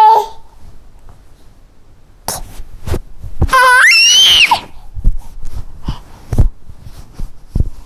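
A young child's high-pitched squeal, rising in pitch, about three and a half seconds in, among scattered knocks and handling noises.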